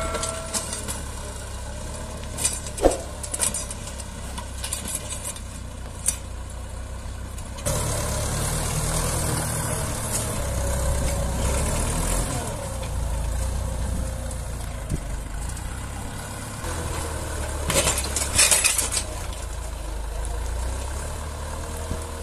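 Tractor engine running steadily, growing louder about eight seconds in, with a few short clatters over it.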